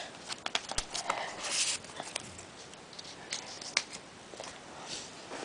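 Trading cards and their packaging being handled: short rustles and several sharp clicks and taps, the loudest click about four seconds in.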